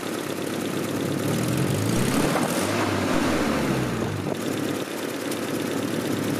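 Nissan CA20E inline-four engine idling, then revved once: it rises about a second and a half in and settles back to idle about three seconds later.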